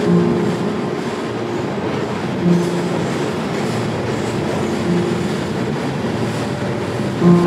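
Freight train running noise heard from aboard a freight car crossing a steel truss bridge: a steady rumble and rattle of the car on the rails.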